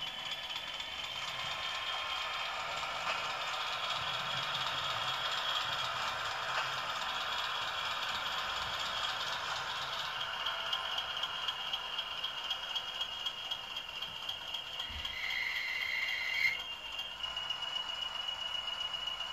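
Model Class 20 diesel locomotive running over model track and points: a steady high motor whine with the wheels rattling over rail joints. About three-quarters of the way through, a second short whine ends in a sharp click.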